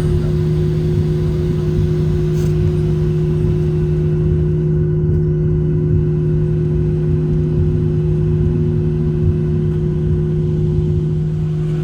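Inside the cabin of a Boeing 737-700 taxiing after landing: a steady drone and rumble from its CFM56-7B turbofans at taxi idle, with a steady low hum and a second, higher hum over it.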